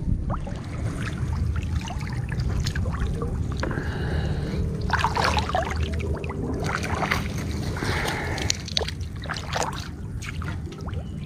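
Swamp water sloshing and splashing as a lift net's bamboo pole is worked and a hand net scoops the catch from it. The splashes and drips bunch up in the middle of the stretch, over a steady low rumble.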